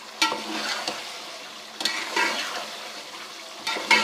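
Chicken frying with spiced tomato-and-pea masala in a pot, sizzling, while a spoon stirs and scrapes through it in three strokes about every second and a half. The chicken is being browned (bhuna) in the masala.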